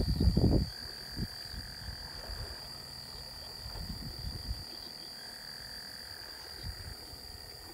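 Night chorus of insects: a steady high-pitched drone, with a lower trill that comes and goes twice. Low rumbling handling noise on the phone's microphone in the first second.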